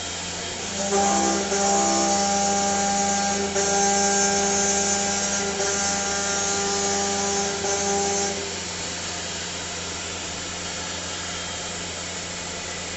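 CNC lathe cutting a workpiece: a steady whine with a high hiss comes in about a second in and stops suddenly after about eight seconds. A steady machine hum carries on underneath.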